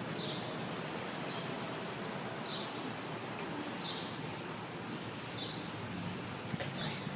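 Steady hiss of rain falling, with a short high chirp repeating about every second and a half, like a bird calling.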